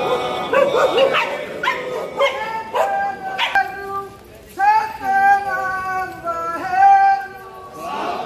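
A dog howling in several drawn-out, pitched calls in the second half, over men of a procession chanting.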